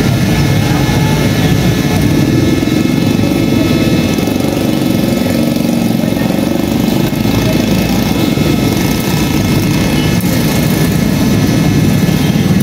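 A motor running steadily, a low hum with a few thin, high whining tones held over it.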